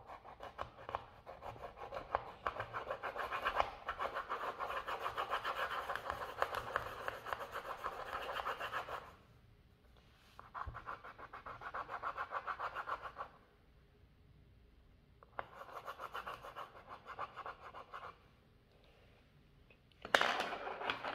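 Colored pencil scribbling fast back and forth on paper, shading in a drawing, in three long spells with short pauses between. A brief louder burst of sound near the end.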